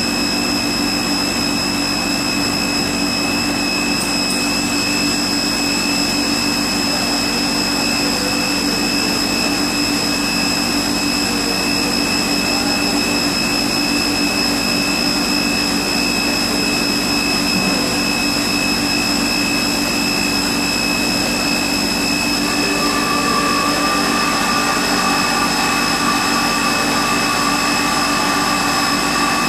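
Rüsch RDU CNC sawing and drilling line for beams running: a steady industrial machine noise with a low hum and several steady high-pitched tones, and a further steady tone joining about 23 seconds in.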